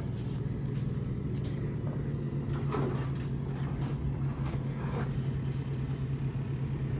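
Farm tractor's diesel engine idling steadily with an even low hum, heard from inside its cab.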